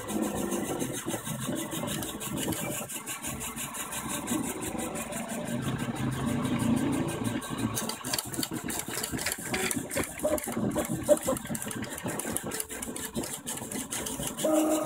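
GK Protoform PF1 3D printer running a print: its stepper motors whine at low pitches that shift as the print head changes moves, over a steady hiss, and from about halfway through there are many small rapid ticks.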